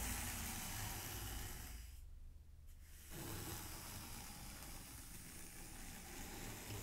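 Small toothed rake dragged through fine sand, a soft hissing scrape as its tines comb grooves. Two strokes, with a short pause about two seconds in.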